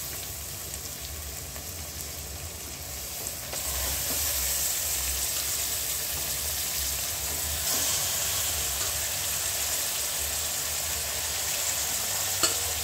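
Raw chicken pieces sizzling in hot oil in an aluminium pressure cooker, a steady frying hiss that grows louder about three and a half seconds in, with a sharp click near the end.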